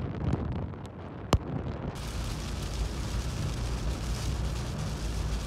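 Hurricane wind buffeting the microphone in gusts, with a single sharp click a little over a second in. About two seconds in, this switches abruptly to the steady hiss and low rumble of a vehicle driving through heavy rain on a wet road.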